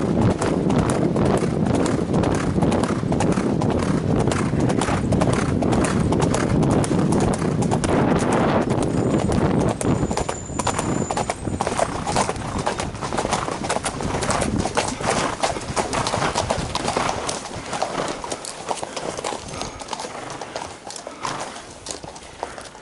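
A ridden horse's hoofbeats on a gravel road, a fast steady clatter of hooves. It gets quieter over the last ten seconds or so.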